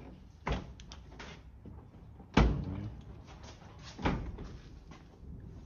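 The rear hatch and tailgate of a 1947 Crosley being unlatched and opened: three metal clunks about two seconds apart, the middle one loudest.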